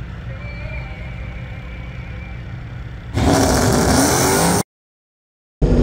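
A low steady rumble, then about three seconds in a sudden, very loud blast of engine noise from a supercharged 392 Hemi Ram pickup at the drag strip line, its pitch sweeping down and back up and overloading the microphone. It cuts off abruptly, and another loud burst starts near the end.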